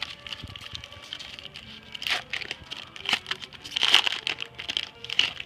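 Foil wrapper of a 2015 Topps baseball card pack being torn open and crinkled, in a run of irregular crackles, loudest about four seconds in.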